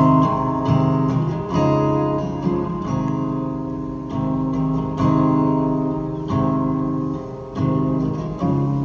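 Acoustic guitar playing the slow opening chords of a song, struck about once a second and left to ring.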